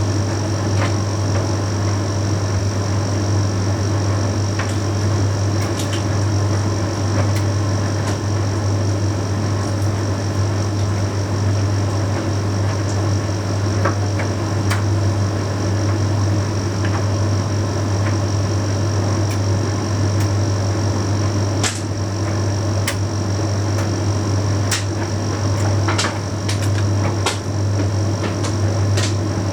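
Bosch Series 6 heat pump tumble dryer running mid-cycle on a load of shirts: a steady low hum and a steady high whine over an even whirring noise, with occasional light clicks.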